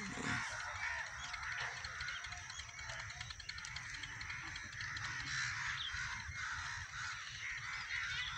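Many birds calling and chattering steadily, a dense mix of short overlapping calls.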